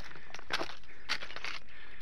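Footsteps crunching on dry stones and fallen leaves, about three steps roughly half a second apart.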